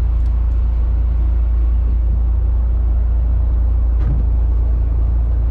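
Fishing boat's engine idling: a steady low rumble.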